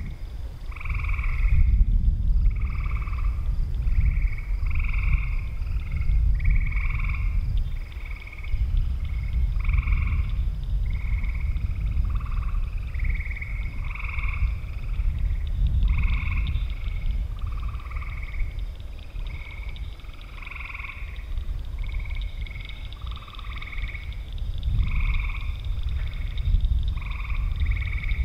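A chorus of frogs calling, short calls of about half a second repeating and overlapping roughly once a second. Beneath them is a steady low rumble, and above them a faint, steady high tone.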